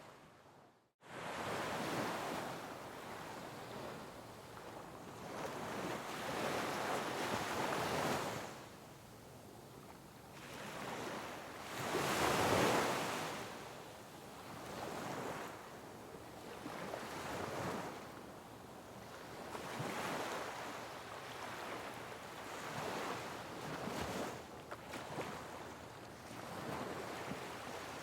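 Sea waves breaking on rocks, a rushing wash that swells and fades in repeated surges every few seconds, the biggest about halfway through. The sound drops out almost completely for a moment about a second in.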